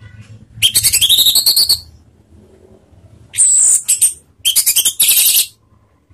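Orange-headed thrush singing in the fast, chattering 'ngeriwik' style: three loud bursts of rapid trilling, the first about a second long with a rising whistle in it, the others shorter.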